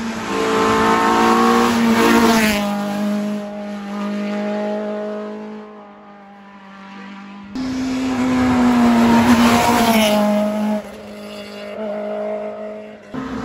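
Rally cars driven flat out on a tarmac special stage, engines at high revs with the pitch climbing and dropping through gear changes. The first car is loud at the start and fades away. The sound jumps back abruptly about halfway, and another car draws near toward the end.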